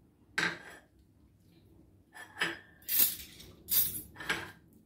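A metal hand grater and a ceramic plate clinking and clattering as they are handled, in about five short knocks and scrapes.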